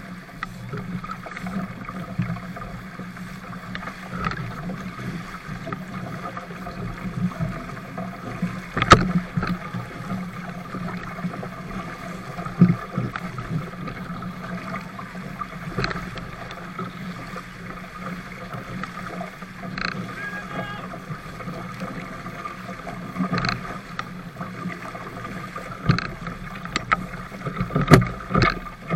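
Water rushing along the hull of a 420 sailing dinghy moving through chop, with several sharp slaps of waves against the hull, the loudest about nine seconds in and near the end.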